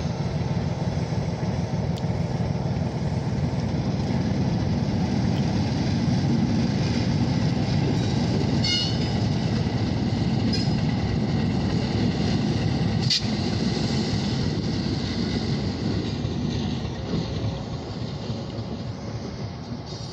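Oil Creek & Titusville Railroad diesel locomotives running light (no cars) passing by, a steady deep rumble with a few sharp clicks. The sound fades over the last few seconds as they move away.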